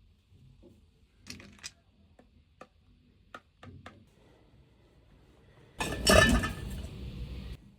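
Light clinks and knocks of small household objects being handled, then a loud rushing noise lasting under two seconds that cuts off suddenly.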